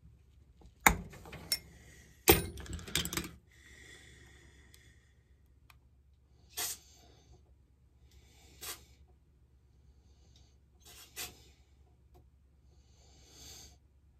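Small metal carburetor parts and a steel pick clicking and tapping against each other as a chainsaw carburetor is handled on the bench. There are two sharp clicks about a second in, a louder clatter of knocks from about two to three seconds in, then a few lighter single clicks spaced a couple of seconds apart.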